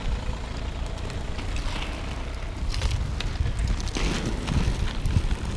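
Wind rushing over the microphone of a moving camera and the rumble of inline skate wheels rolling over rough asphalt, with a few sharp knocks from the play.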